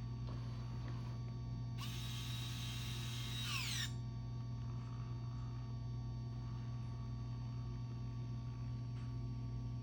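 Roborock Saros Z70 robot vacuum running with a steady low hum; from about two seconds in, a higher motor whir sounds for about two seconds, then falls in pitch as it winds down.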